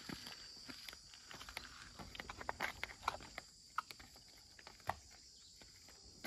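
Footsteps crunching and crackling irregularly over dry forest leaf litter, against a steady high drone of insects.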